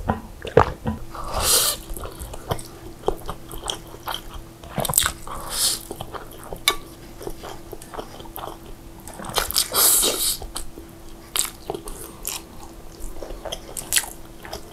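Close-up eating of saucy instant noodles (mie nyemek made from Indomie goreng): several loud slurps with chewing between them and small clicks of a metal fork against a glass dish, over a faint steady hum.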